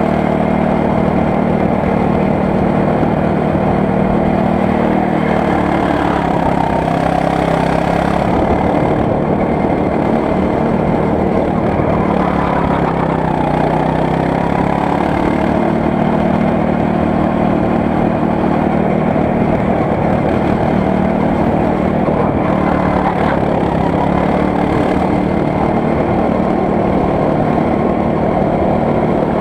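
Go-kart engine running hard, heard on board the kart. Its pitch drops twice as the kart slows for corners and rises again as it accelerates.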